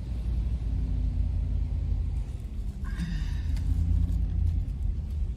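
Vehicle's engine and road rumble heard from inside the cab while driving, a steady low drone.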